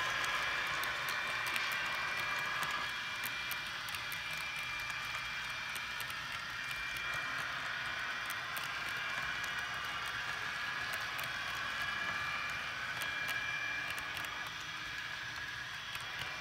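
HO scale model freight cars rolling past on the track: a steady rolling hum with many small, irregular clicks from the wheels on the rails.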